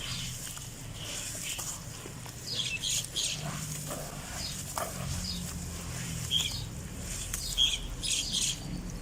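Birds chirping in short bursts over a low steady hum.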